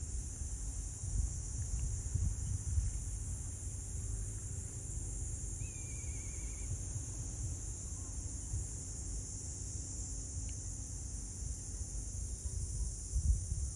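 Steady high-pitched drone of insects singing, over a fluctuating low rumble. A short bird trill comes about halfway through.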